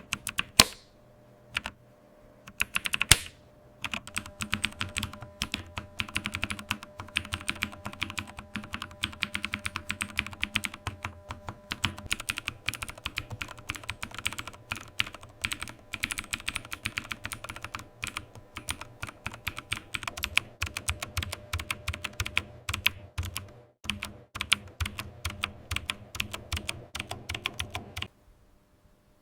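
Mechanical keyboard being typed on: a few single key clicks, then a long run of fast, continuous typing that stops abruptly near the end.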